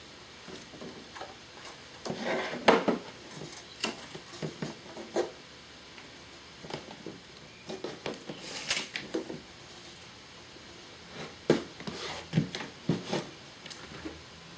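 Light handling noises on a workbench: scattered clicks, taps and rubs with a few short scratchy rasps, as masking tape is pulled and pressed down to hold the pin hinges in place while the epoxy sets.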